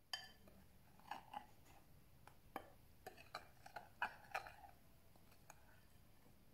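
Metal spoon stirring flour and baking powder in a glass bowl, clinking against the glass about a dozen times at an irregular pace, with soft scraping between the clinks.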